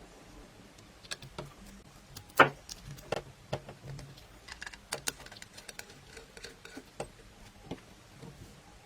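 Irregular light clicks and knocks of hard objects being handled, with one sharper knock about two and a half seconds in.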